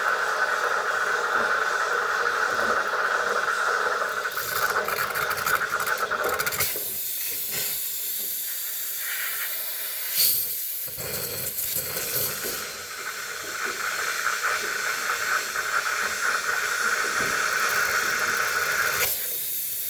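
A jet of steam hissing steadily as it is blown into a refrigerator's freezer to melt ice off the evaporator and drain. The hiss thins out about a third of the way through, with a brief sharp click, then comes back full and cuts off shortly before the end.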